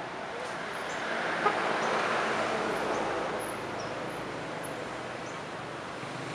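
Outdoor ambient rushing noise that swells for a couple of seconds and eases off, with a single sharp click about a second and a half in and faint, short, high bird chirps.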